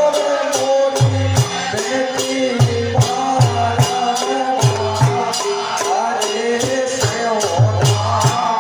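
Live phag folk music over a loudspeaker system: a repeating low drum pattern under a steady jingling percussion beat, with a wavering melody line above.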